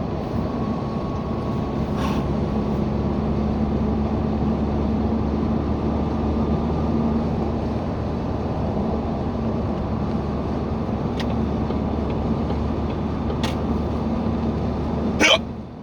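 Steady road and engine drone inside a moving car, with a few faint clicks. Near the end comes one sharp, loud hiccup.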